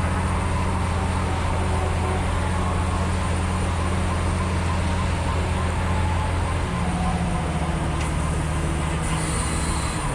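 Heavy truck diesel engine running steadily, its note dropping about two-thirds of the way through.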